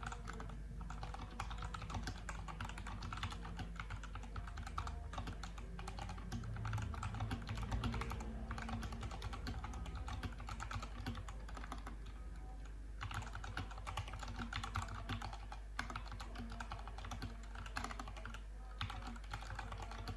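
Fast, continuous typing on a Fantech Maxfit61 mechanical keyboard with red linear switches, the keys clacking in quick runs. The clacking breaks off briefly about a second in, a little past the middle and again near the end.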